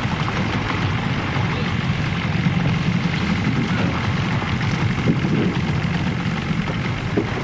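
A small boat's engine running steadily, with wind and sea noise over it.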